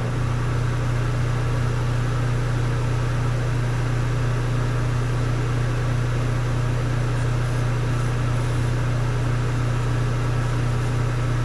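Shop exhaust fan running steadily: an even motor hum with a deep drone under a wash of rushing air.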